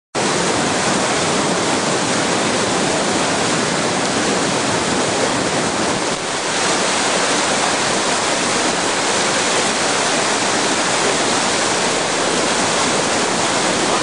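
Steady rush of white water from a river cascade pouring over rocks, with a short dip about six seconds in.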